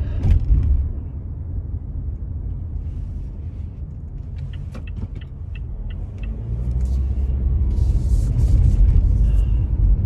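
A man blowing his nose hard into a cloth handkerchief, with a sharp blast right at the start and further hissing blasts of air near the end, over a steady low rumble inside a car.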